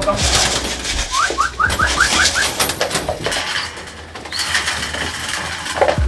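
Young racing pigeons coming down into a loft, with bursts of wing flapping and scuffling. About a second in comes a quick run of about seven short rising chirps.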